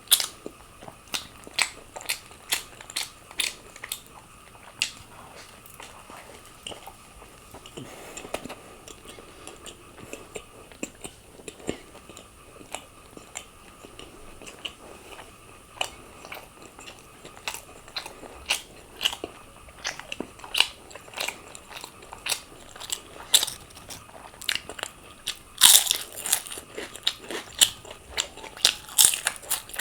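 Close-miked biting and chewing of a cheese burst margherita pizza with chicken tikka topping: a string of sharp, irregular crunches as the crust is bitten into and chewed, with one louder, longer crunch near the end.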